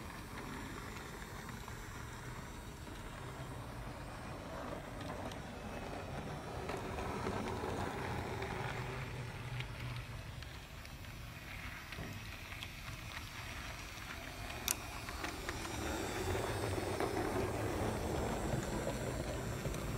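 Bigjigs Rail wooden Mallard toy locomotive and tender running along wooden track: a steady rolling rumble of wheels on the track that swells twice as the train comes closer, with one sharp click near the end.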